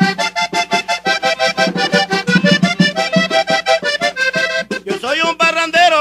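Vallenato accordion music: the accordion plays a fast run of notes in an instrumental break between sung lines, with percussion keeping a steady beat.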